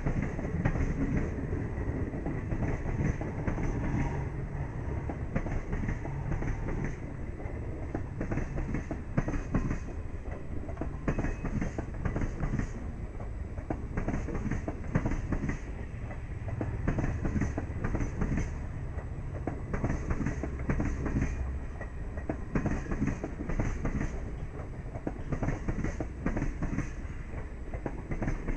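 Indian Railways ICF passenger coaches rolling past, their wheels clattering over the rail joints in a repeating clickety-clack over a steady low rumble.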